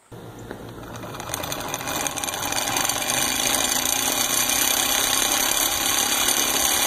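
Fishing reel being cranked to reel a shooting target back across the lawn on its line: a steady mechanical whirring that grows louder over the first few seconds, then holds.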